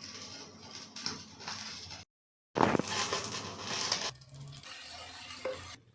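Kitchen cooking and food-handling noises in short cut-together clips, broken by a moment of dead silence about two seconds in.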